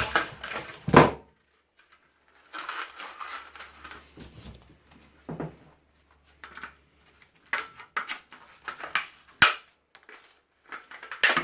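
Irregular sharp clicks and knocks of hand tools working on the metal and plastic parts of an electric fan being taken apart, with scraping in between and one loud sharp crack near the end.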